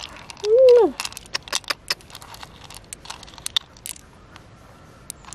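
A short exclaimed "wow" near the start, then a run of small sharp clicks that thin out: pearls clicking against one another and the shell as fingers pick them out of an opened freshwater pearl mussel and gather them in the palm.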